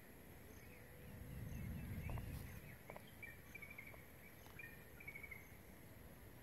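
Faint outdoor ambience: a low rumble swells and fades around two seconds in, followed by a run of short, wavering high chirps from a small animal.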